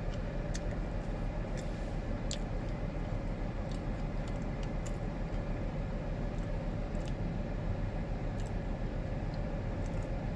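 Steady low hum of a car idling, heard from inside the parked car's cabin, with a few faint small clicks scattered through it.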